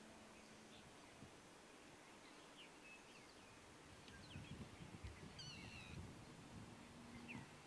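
Faint outdoor ambience: scattered short bird chirps, with a brief wavering call about five and a half seconds in and a low rumble in the second half.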